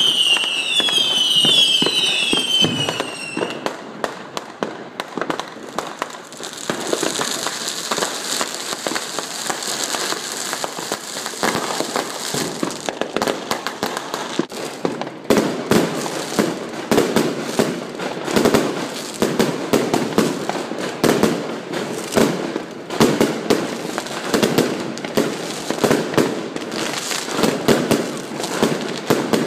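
Consumer fireworks going off all around: several falling whistles in the first few seconds, then continuous crackling and bangs from many fireworks at once. In the second half a regular run of strong reports comes about once a second.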